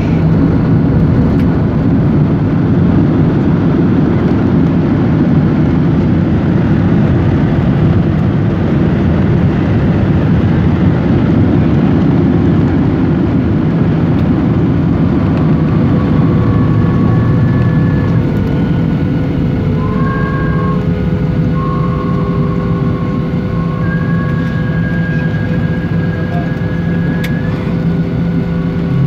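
Boeing 737-800 on its landing rollout, heard from inside the cabin: a loud, steady rush of engine and runway noise that eases somewhat in the second half as the aircraft slows, when thin whining tones come in.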